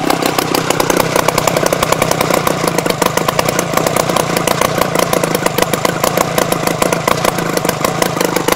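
Rotax 399cc two-stroke twin-cylinder snowmobile engine running steadily at a fast idle, a rapid even train of firing pulses.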